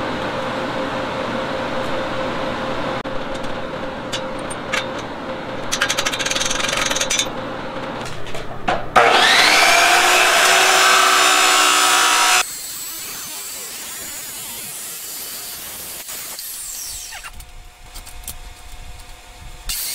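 TIG welding hum and hiss for the first several seconds. Then a DeWalt abrasive chop saw motor starts with a rising whine and runs loud for about three seconds before cutting off abruptly.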